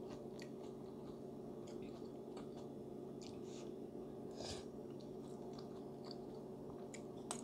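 Close-miked eating sounds of Samyang spicy instant noodles: a metal fork and spoon stirring and lifting the saucy noodles in a ceramic bowl, with scattered soft wet clicks and chewing, and a sharp clink near the end. A steady low hum runs underneath.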